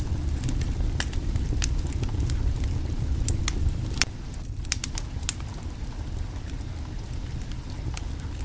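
Wood fire burning under a cooking pot: irregular sharp crackles and pops over a steady low rumble of the flames, a little quieter after about four seconds.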